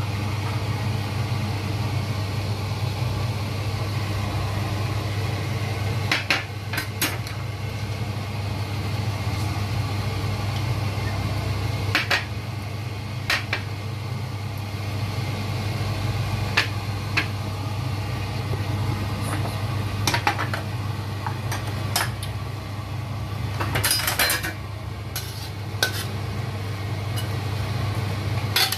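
Metal spatula clinking against a stainless steel wok while stirring: about a dozen sharp clinks, spaced irregularly, over a steady low hum.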